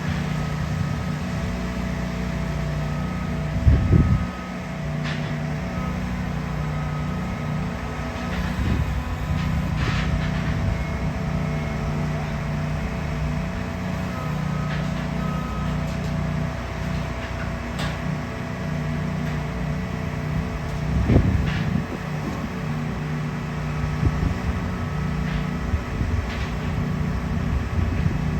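Heavy diesel construction machinery, such as a concrete pump truck, running with a steady low drone. Two dull low thumps come about 4 seconds in and again near 21 seconds.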